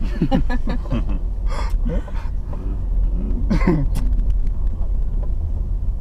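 Low steady rumble of a car moving slowly, heard from inside the cabin, with a few brief snatches of voices.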